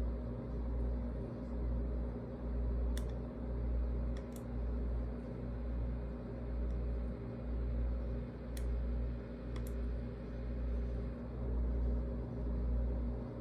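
A few sharp computer mouse clicks, spaced several seconds apart, as a distance measurement is drawn on an imaging workstation. Behind them runs a steady low machine hum that swells and fades about once a second.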